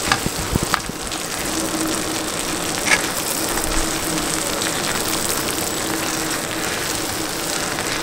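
Thick tomato-onion masala sizzling steadily as it fries on a tawa while it is being roasted down. A few short spatula scrapes are heard in the first second and again around three seconds in.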